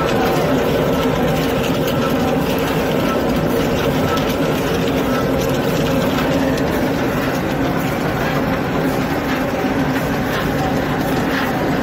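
Electronic grain roaster running: a steady machine hum, with the rustling rattle of roasted puffed grains pouring out down its steel chute.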